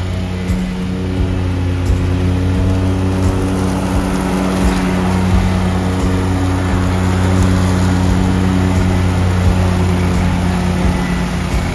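John Deere Z970R zero-turn mower's 35-horsepower Kawasaki gasoline engine running steadily while mowing, a constant engine drone with no change in speed.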